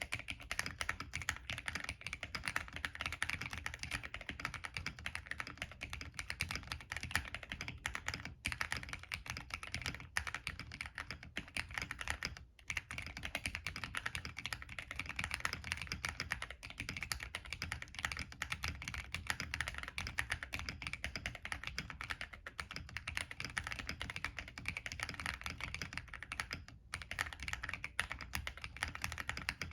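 Continuous typing on a plateless MK870 tenkeyless mechanical keyboard with NK Cream linear switches and PBT Cherry-profile keycaps: a dense, rapid run of keystroke clacks, broken by short pauses about 8, 12 and 27 seconds in.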